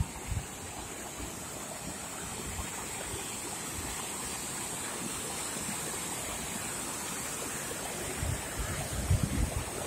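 Steady rushing of water from a waterfall, with wind buffeting the microphone in low thumps near the end.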